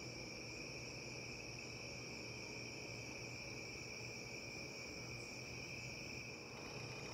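Crickets calling in a faint, steady, unbroken high-pitched chirring over a low background hum.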